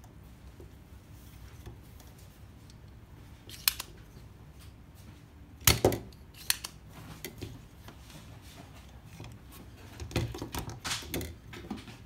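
Spring-loaded desoldering pump (solder sucker) being cocked and fired over a circuit board's solder joints, giving sharp plastic snaps: one about four seconds in, the loudest near six seconds, and a cluster of smaller clicks near the end.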